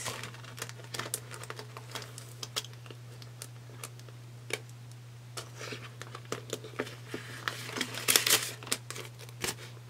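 Soft crinkling of a clear plastic binder pouch and rustling of paper banknotes as bills are slipped into it, with scattered small clicks and a busier burst of rustling about eight seconds in. A steady low hum runs underneath.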